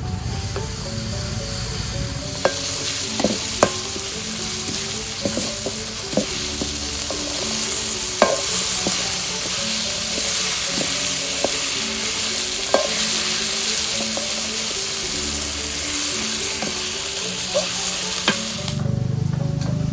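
Food sizzling as it fries in hot oil in a pan. The sizzle starts about two seconds in and stops shortly before the end, with a few sharp clicks of a utensil against the pan.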